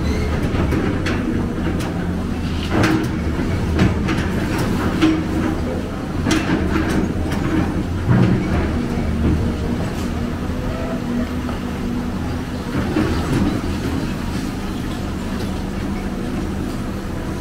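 Large excavator's diesel engine running steadily under load, a low drone with tones that shift in pitch as the machine works, and a few sharp metallic clanks scattered through it.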